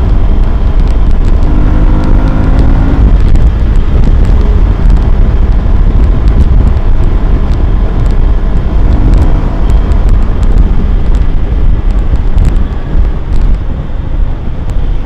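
Yamaha FZ-16's single-cylinder four-stroke engine running through its stock exhaust while riding, with heavy wind rumble on the microphone.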